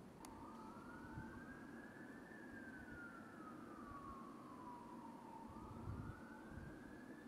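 Faint emergency-vehicle siren wailing in a slow rise and fall: up in pitch for about two seconds, down over about three, then rising again near the end. A low steady hum sits underneath.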